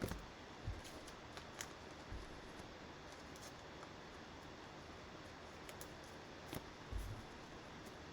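Faint handling noises of trading cards: a few soft taps and clicks as cards are shuffled and set down on a table.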